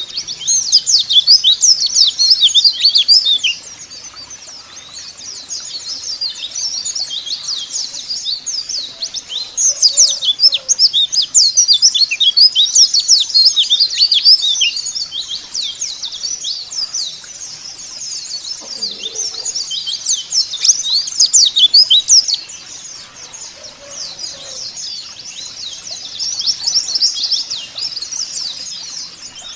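White-eyes (pleci) twittering in a fast, dense stream of high chirps. The song swells in loud spells of a few seconds that alternate with softer stretches.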